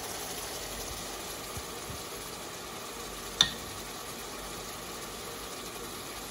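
A pot of curry simmering with a steady hiss, and a single sharp clink about three and a half seconds in.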